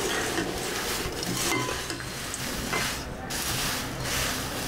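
Crisp, dry thin-poha chivda being stirred in a steel kadhai: the flakes rustle and scrape against the pan in repeated sweeps, with the odd clink.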